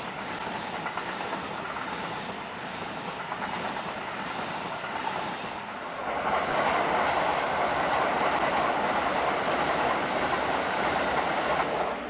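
Keikyu 1000-series electric commuter trains passing at speed, with wheels rumbling and clacking on the rails. The sound jumps louder about halfway through and cuts down sharply at the end.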